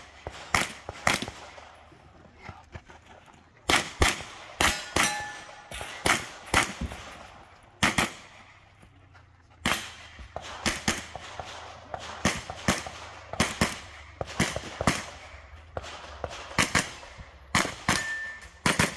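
Rapid gunshots fired in quick pairs and strings during a practical shooting stage, with short pauses while the shooter moves between positions. A brief metallic ring follows a couple of the shots, typical of a steel target being hit.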